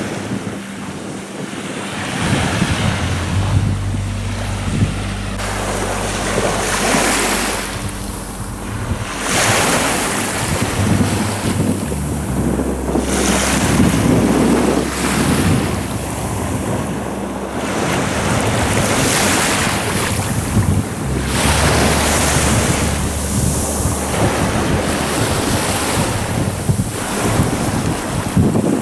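Small sea waves washing onto a sandy beach, swelling and falling back every few seconds, with wind buffeting the microphone.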